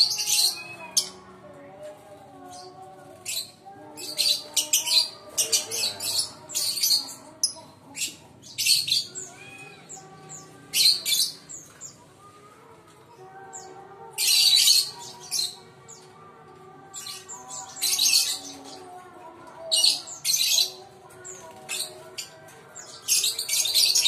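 Lovebirds calling in short, harsh, high-pitched shrieks that come in irregular clusters every few seconds, over a softer, lower wavering chatter.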